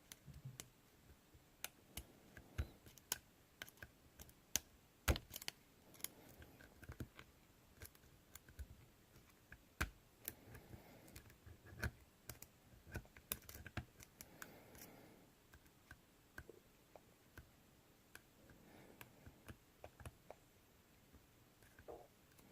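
Lock pick and tensioner working inside a Mindy padlock's core: faint, irregular small clicks and light scrapes as the pins are probed, with a sharper click about five seconds in.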